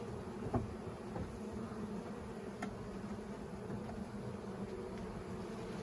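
Steady buzzing hum of an open honey bee colony, many bees flying over the frames. A light knock about half a second in and a few faint clicks sound over it.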